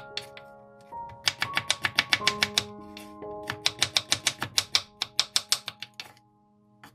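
A knife chopping carrot into thin strips on a wooden cutting board: rapid sharp strokes, about six a second, in two quick runs that stop about six seconds in. Background music plays underneath.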